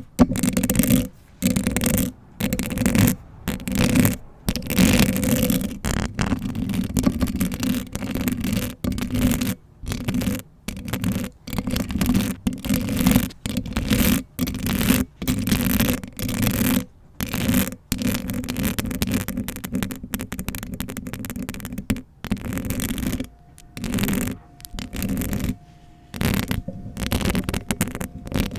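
Long fingernails scratching and rubbing directly on a bare Blue Yeti microphone, in quick irregular bursts broken by brief pauses. A faint steady hum comes in near the end.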